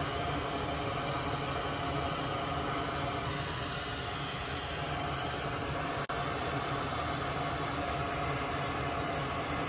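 Steady hiss of background noise, like a fan or air flow, with no distinct events; it drops out for an instant about six seconds in.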